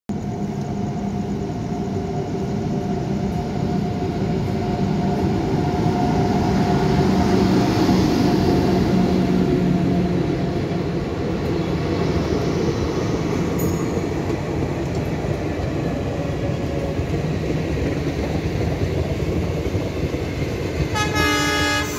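Passenger train rolling through a station, with a steady rumble of wheels on rails and coaches clattering past. A train horn starts sounding about a second before the end.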